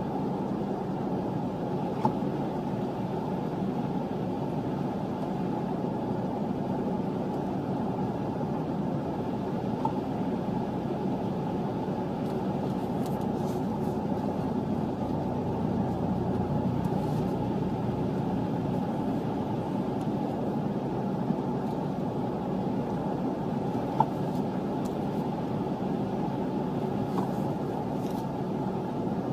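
Steady low rumble of cars idling in a stopped queue, heard from inside a stationary car's cabin, with a couple of faint clicks.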